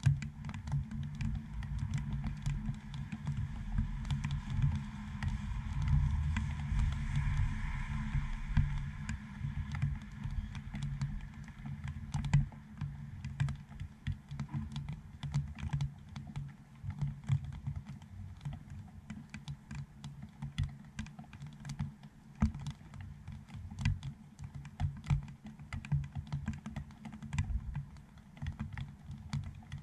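Raindrops striking a GoPro dome housing right over the camera's microphone: an irregular patter of close taps and small thuds. A faint hiss swells and fades within the first ten seconds.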